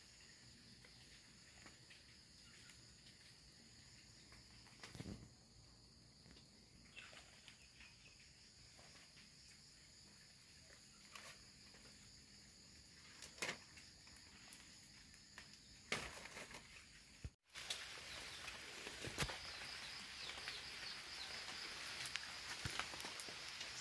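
Faint outdoor ambience with a steady high-pitched insect buzz, broken by a few soft knocks. About 17 seconds in the sound drops out for an instant and comes back with a louder hiss under the same insect buzz.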